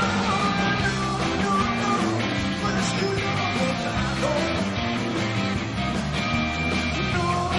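Rock band playing live, electric guitar over bass and drums, at a steady level.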